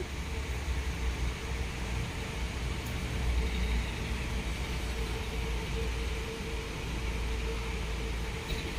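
Steady low rumble with a faint constant hum underneath, like an idling engine or running machinery, with no distinct events.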